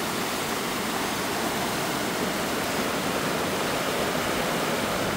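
Steady rush of a rain-swollen waterfall on the Mojaflores river, the even sound of a large volume of falling water.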